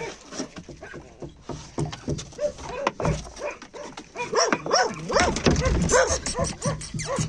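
Dogs barking and yipping over and over in short, pitched calls, growing busier about halfway through.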